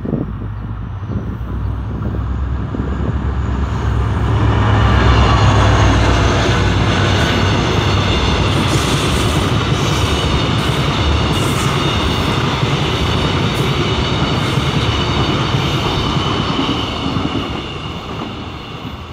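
Freight train passing at speed: a low rumble from the locomotive builds over the first few seconds, then a long string of heavily loaded flatcars runs by with wheel clatter and a faint high metallic ringing, fading away near the end.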